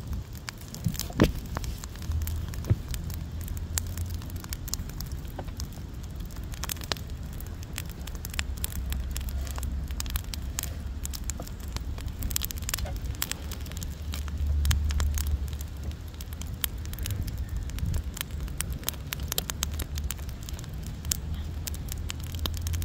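Wood fire in a fire pit crackling, with irregular sharp pops throughout, the loudest about a second in, over a steady low rumble.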